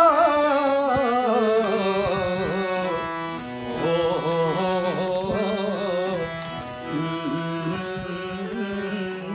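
A singer holding a long, wavering 'o' with vibrato that winds slowly down in pitch through ornamented turns, over a steady instrumental drone: the free-time opening of a Hindi/Rajasthani devotional bhajan.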